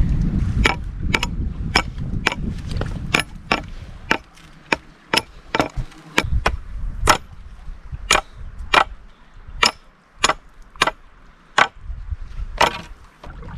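A series of sharp clicks, roughly two a second, over a low rumble that is strong at first and fades after about four seconds.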